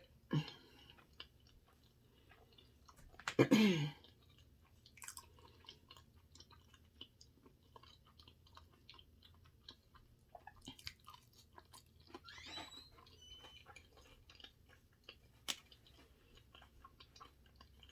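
Close-miked chewing of sushi, with many small wet mouth clicks and smacks. There is a short hummed voice sound about three and a half seconds in and a fainter one near twelve seconds.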